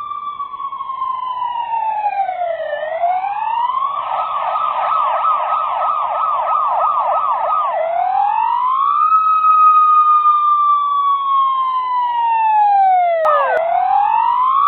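Police siren sounding: a slow wail that falls and rises, switching for a few seconds to a fast yelp of about three sweeps a second, then back to the slow wail. A brief click near the end, and the siren grows a little louder throughout.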